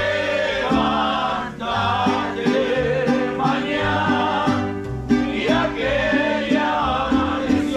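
Live mariachi band playing and singing, with voices over strummed guitars and a plucked bass line that steps between notes in a steady rhythm.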